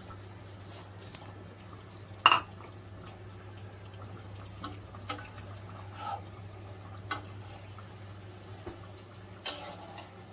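Curd-and-mustard hilsa curry simmering in a metal kadai: soft bubbling and plopping of the gravy, with a few sharp knocks, the loudest about two seconds in and another near the end.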